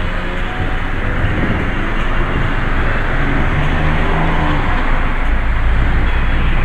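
Road traffic on a town street, with a car going by close to the microphone; a low rumble grows near the end.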